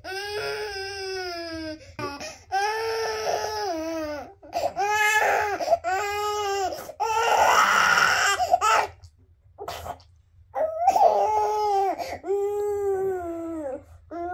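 Infant crying in a run of long, high wails, each lasting a second or two. The crying breaks off for about a second and a half around nine seconds in, then starts again.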